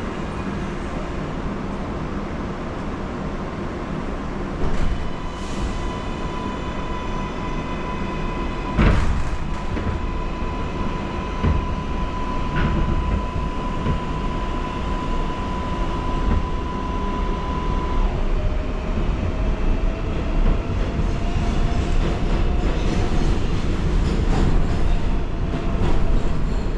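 New York City subway train heard from inside the car: a steady rumble with a thud about nine seconds in, then a slowly rising whine from about two-thirds of the way through as the train gathers speed.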